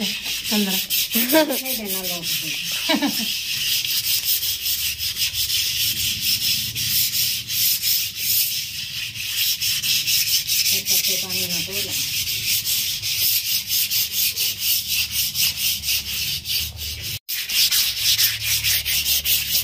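Large metal kadhai (wok) being scrubbed by hand with water, a steady run of quick, repeated scraping strokes against the metal as it is scoured clean.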